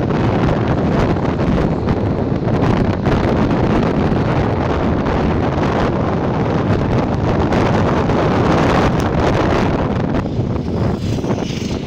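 Wind buffeting the microphone, over the steady running of tractor engines as a procession of vintage tractors drives past.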